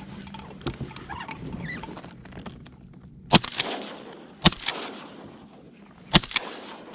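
Three shotgun shots at a duck, the second about a second after the first and the third under two seconds later, each a sharp crack with a short ringing tail.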